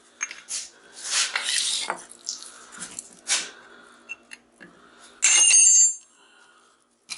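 Metal scraping and clinking as a small transformer's steel core is worked apart with a hammer, with a sharp knock about three seconds in and a loud ringing metallic strike a little after five seconds.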